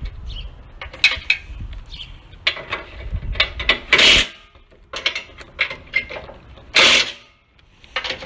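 Ratchet wrench clicking in short runs as bolts are driven, with two louder bursts about four and seven seconds in.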